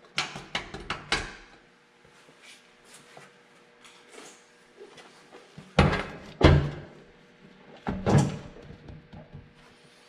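A bundle of folded paper letters knocked and jogged against a metal delivery table: a quick run of light knocks at the start, then three heavy thumps, two close together around the middle and one a little later, over a faint steady hum.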